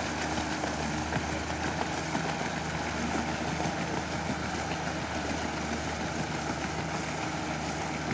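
Outboard motor running at a steady low speed, with an even rushing noise over it.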